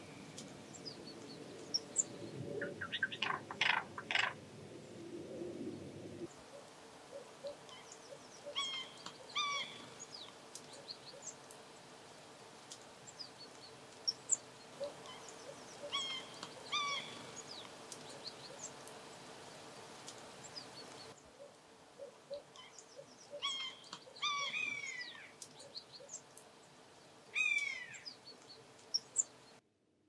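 Wild birds calling: short call notes, often in pairs and small clusters, some bending downward, over a faint steady hum. The background noise changes abruptly twice, about 6 and 21 seconds in.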